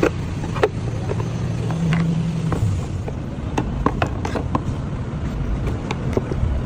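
Car engine running with a steady low rumble, with scattered sharp clicks and taps over it.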